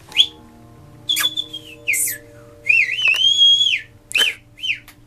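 Human whistling: a string of high, clear notes with pitch glides. There is a short chirp at the start, a falling note about a second in, a warbling run leading into a long held note about three seconds in, and two quick notes near the end.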